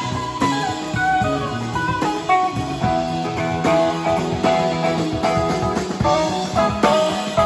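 Live band playing an instrumental passage: drum kit, electric bass and electric guitar, with steady drum strokes under sustained guitar notes.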